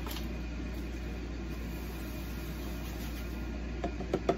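Steady low kitchen hum, with a few light taps and rustles near the end as instant potato flakes are shaken from a cardboard box into a steel stockpot.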